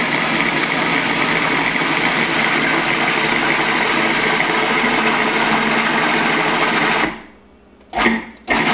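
Electric blender running steadily at full speed, puréeing garbanzo beans, tahini, garlic and lemon juice into hummus. It cuts off about seven seconds in, then is pulsed on twice briefly near the end.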